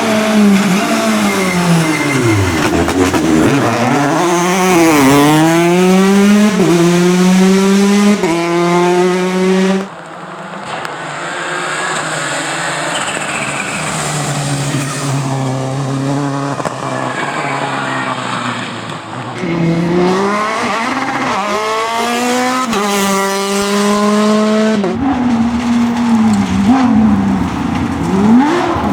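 Rally cars at full throttle, engine pitch climbing and dropping back at each upshift as they accelerate through the gears. After about ten seconds the sound changes suddenly to a quieter, lower, steadier engine note; about twenty seconds in another car accelerates hard through several gears.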